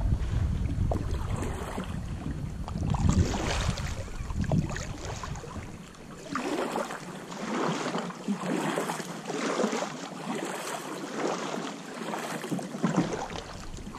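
Kayak paddle strokes in still floodwater: a regular swish and splash of the blades, about one stroke a second. Wind rumbles on the microphone through the first half and cuts off about halfway.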